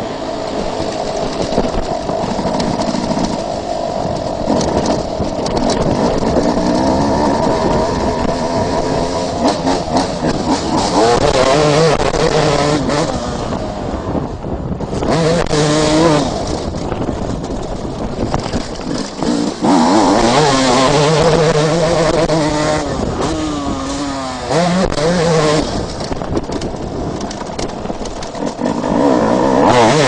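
Suzuki RM250 two-stroke motocross engine ridden hard, its pitch climbing and dropping again and again as the throttle is worked and gears are changed, with a brief throttle chop about halfway through.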